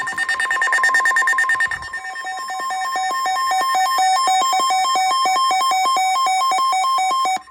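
Electronic emergency alert tones announcing a severe thunderstorm warning. A rapid pulsing beep runs for about two seconds, then gives way to a warbling tone that alternates between two pitches about five or six times a second and cuts off abruptly.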